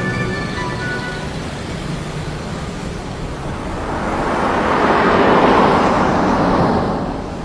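Street traffic noise with a car driving past: its noise swells from about halfway through, is loudest near the end, then fades.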